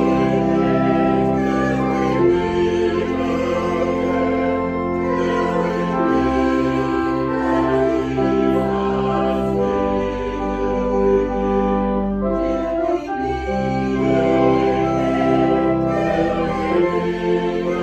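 Organ music: sustained chords that change every second or two.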